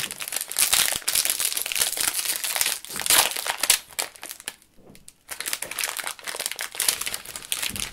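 Plastic snack packaging crinkling and crackling as it is handled while a fish-shaped wafer is pulled out, with a short lull about halfway through.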